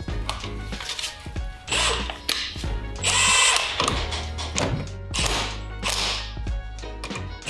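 Cordless impact wrench hammering in several short bursts, the longest near the middle, as it runs in a wheel's lug bolts.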